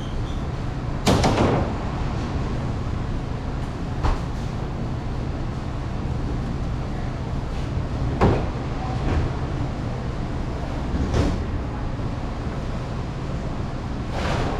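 Commercial kitchen working noise: a steady low hum with about five short knocks and clatters a few seconds apart, like doors and cupboards being shut.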